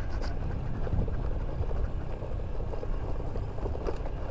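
Honda Vario 125 scooter, a single-cylinder automatic, riding over a rough stony dirt track: a steady low engine and road rumble with scattered knocks and rattles from the bumpy surface.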